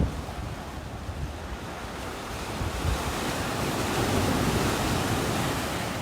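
Mediterranean sea waves washing on the shore, with a surge that builds through the middle and eases toward the end. Wind buffets the microphone with a low rumble.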